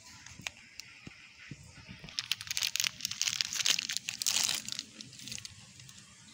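Plastic packaging crinkling and tearing as a new replacement part is unwrapped. There are a few light crackles at first, then a dense stretch of crinkling from about two to four and a half seconds in.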